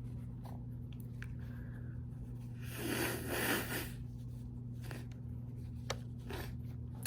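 A person's breathy burst of noise, about a second long, roughly three seconds in, during a sneezing fit brought on by chhinkni sneezing powder. A few light clicks and rustles follow, over a steady low hum.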